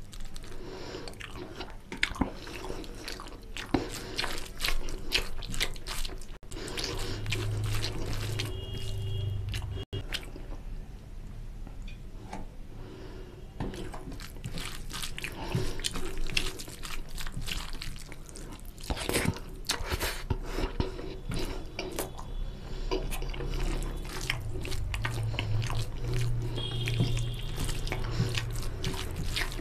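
Close-miked eating sounds: fingers mixing rice into oily chicken curry gravy on a plate and a person chewing mouthfuls, with many short clicks throughout.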